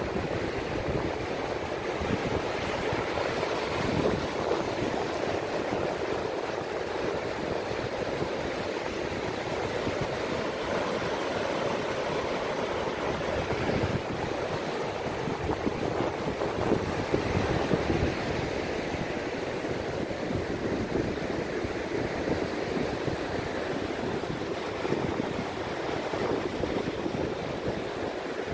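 Ocean surf breaking and washing up a sandy beach: a steady rush of waves and foam that swells a little now and then.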